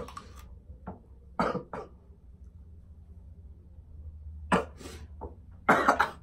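A series of short coughs from people eating raw onion, set off by the onion's burn in the throat; the loudest cluster comes near the end.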